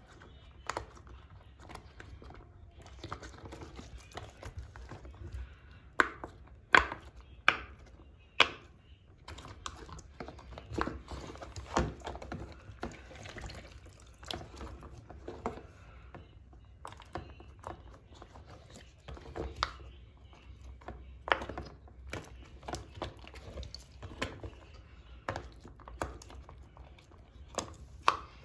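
Plastic fidget toys being handled in water: irregular sharp clicks and clacks, several louder knocks about six to eight seconds in, with faint sloshing between them.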